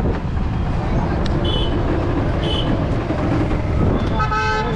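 Busy city street traffic: a steady rumble of engines, two short high beeps in the first half, and a vehicle horn honking briefly near the end.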